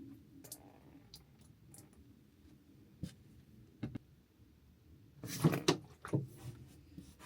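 Mopping a camper-van floor: a few soft knocks and scuffs, with a louder cluster of scuffing strokes about five seconds in.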